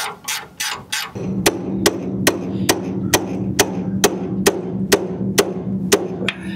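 A ratchet wrench clicks quickly for about a second. Then come sharp, evenly spaced hammer blows on the front suspension at the outer tie rod end, about two a second, over a steady low hum.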